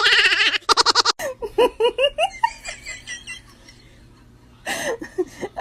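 High-pitched laughter: a run of short giggles, loudest in the first second, fading into a lull and picking up again near the end.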